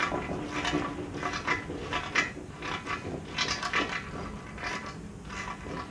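Irregular metallic clinks and knocks from steel backhoe parts being handled.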